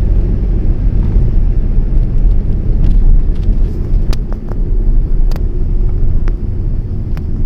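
Road and engine noise inside a moving car: a steady low rumble, with a few faint clicks here and there.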